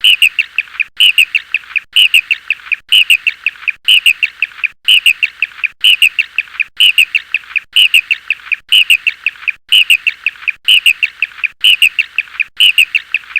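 A bird calling: a quick phrase of four or five high chirps, repeated evenly about once a second.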